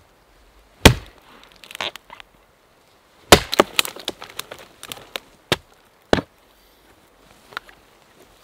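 An axe chopping the dry branches off a fallen dead tree in a series of separate sharp strikes. The loudest comes about three and a half seconds in and is followed by a run of cracking and snapping as a dry branch splinters and breaks away. Two more strikes follow near the six-second mark.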